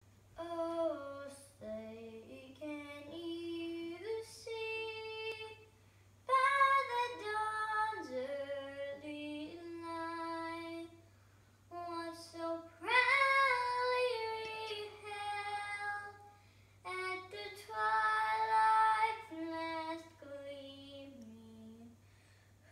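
A young girl singing solo and unaccompanied, holding long notes in phrases with short breaths between them.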